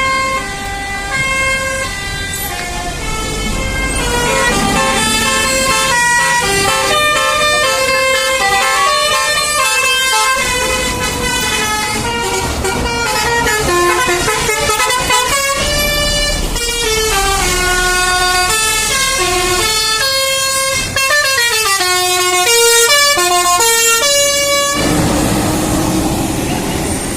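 A bus's 'basuri' telolet musical air horn playing a quick melody of stepped notes. It cuts off about 25 seconds in, leaving engine and road rumble.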